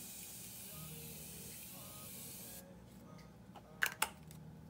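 Morphe Continuous Setting Mist spray bottle releasing one long, steady hissing jet of fine mist, which cuts off about two and a half seconds in. Two short clicks come near the end.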